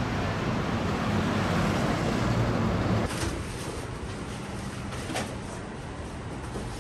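City street traffic noise, a steady rumble and hiss, that cuts off about three seconds in. It gives way to quieter indoor noise with a couple of light knocks as pachinko machines are carried in.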